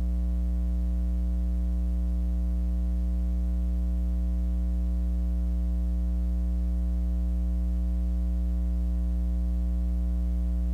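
Steady electrical mains hum, a low drone with higher tones stacked above it, unchanging throughout, with no game sound beneath it.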